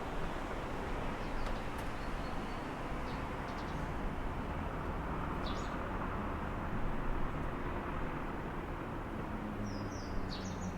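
Steady hum of city traffic heard through an open window, with a few short bird chirps: one about halfway through and a small cluster near the end.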